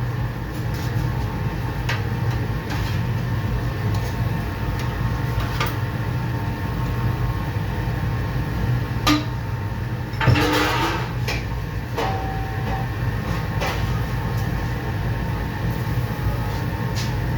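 Working kitchen sounds: a steady low hum of kitchen equipment, with occasional knocks and a louder clatter about ten seconds in.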